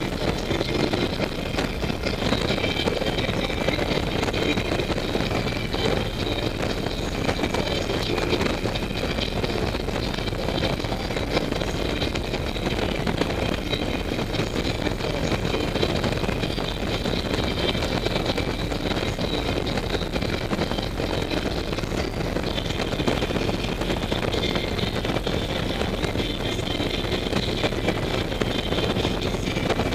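2008 Harley-Davidson Ultra Classic's Twin Cam 96 V-twin running steadily at highway cruising speed, heard from the rider's seat, mixed with a constant hiss of wind and road noise.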